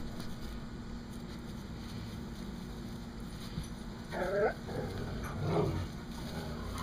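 Seven-week-old Chihuahua/miniature pinscher mix puppy giving a short whimper about four seconds in and a fainter one about a second later.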